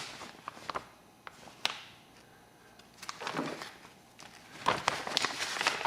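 Light, sharp clicks and taps from handling the small metal parts of a vintage gas lighter and the tools on the bench: a few scattered at first, then a quieter spell, and a busier run of taps near the end.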